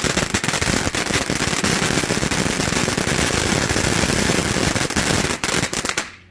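Santan Fireworks Dragonfly cone fountain firework burning: a loud, dense hiss full of rapid crackling pops, cutting off suddenly near the end as the fountain burns out.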